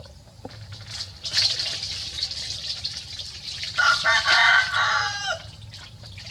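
A rooster crowing once, a long call about four seconds in that falls away at the end, over splashing water.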